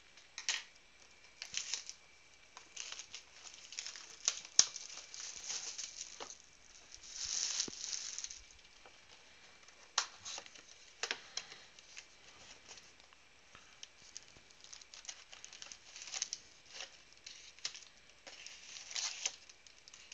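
Plastic wrapping crinkled and torn off a cardboard trading-card box, then the box opened and its foil card packs slid out and handled: intermittent crinkling, tearing and light knocks, with a longer rustle about seven seconds in.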